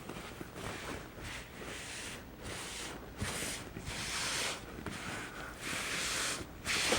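Iron pressing a fabric quilt block: a series of hissing bursts, each about half a second to a second long, getting louder from a couple of seconds in, with a few soft knocks.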